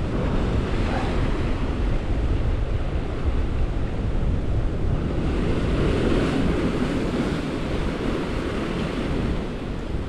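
Waves surging and breaking against the rocks, with wind buffeting the microphone; the surf swells a little about six seconds in.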